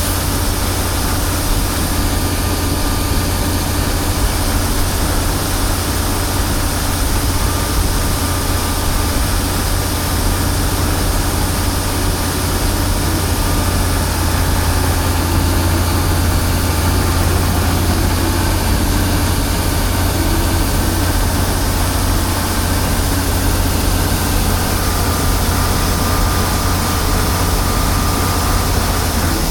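Combine harvester running steadily: a loud, even engine drone that holds without change.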